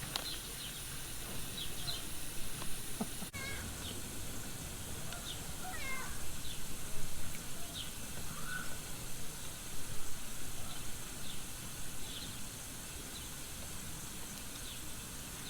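A cat meowing several times with short, high calls over a steady background hiss.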